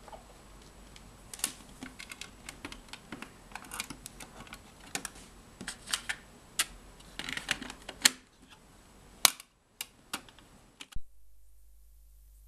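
Irregular clicks and clatter as a homemade cassette player is handled: its plastic cassette-compartment lid is opened, a cassette is loaded and the lid is pressed shut, with sharp snaps near the end. About 11 seconds in, the sound switches abruptly to a faint, steady low hum from the player's headphone output.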